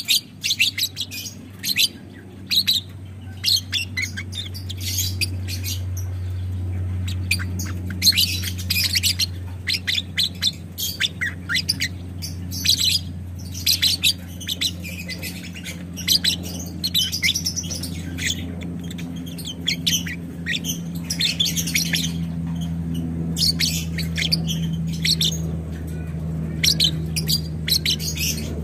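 Lovebird chattering in clusters of rapid, shrill high-pitched bursts, the long 'ngekek' song that lovebird keepers prize, with a steady low hum underneath.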